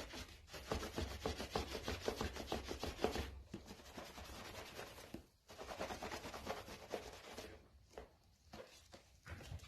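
A cloth rag rubbed rapidly back and forth over a vegetable-tanned leather pouch, working in the finish, with short pauses about three and a half and five and a half seconds in. The rubbing stops after about seven and a half seconds, leaving only light handling noise.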